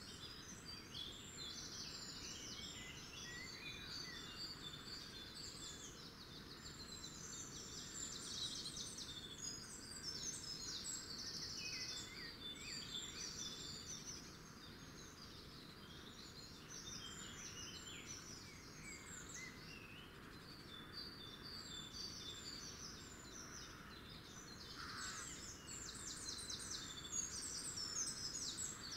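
Small songbirds singing and chirping together in a continuous chorus of rapid trills and twittering, over a faint steady outdoor hiss.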